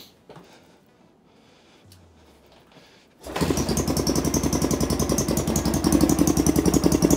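KTM LC4 660 single-cylinder engine being cranked on its electric starter in a start attempt. The fast, even pulsing starts about three seconds in and grows slightly louder. With the Ignitech tuning CDI fitted it is hard to start, and the result is judged worse than the try before.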